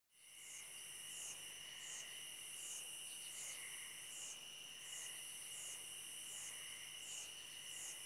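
Faint night chorus of crickets and other insects: a steady high trill with a chirp that repeats at an even pace, a little over once a second.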